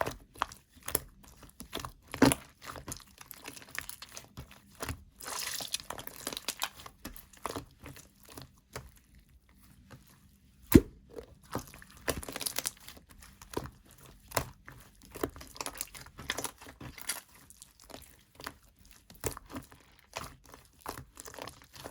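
Crunching and crackling as a crumbly, pigment-dusted material is pressed and broken by hand, in irregular bursts of small cracks. A single sharp knock stands out about eleven seconds in.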